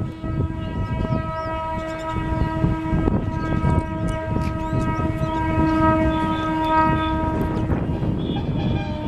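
Indian Railways WAM4 electric locomotive sounding one long horn blast on a single steady note, ending about eight seconds in, over the low rumble of the passing train.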